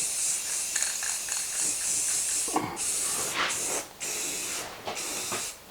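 Semi-gloss clear coat being sprayed onto the wooden shoe rack: a steady hiss for about two and a half seconds, then shorter bursts of spray with brief breaks between them.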